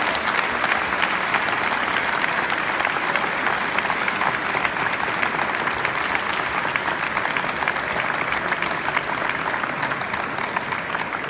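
A crowd of people applauding with steady hand-clapping, easing off slightly near the end.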